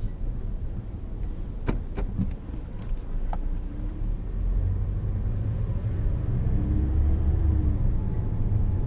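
Car driving, a steady low engine and road rumble that grows louder about halfway through, with a few sharp clicks about two seconds in.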